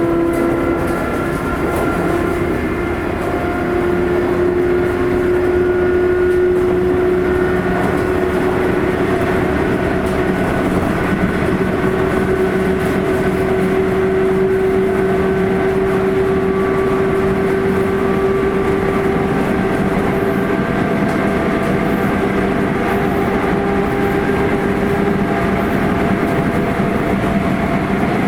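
Interior running noise of a Sotetsu 8000 series electric train, GTO-thyristor VVVF motor car, travelling at speed: a steady rumble with several whining tones, the strongest climbing slowly in pitch.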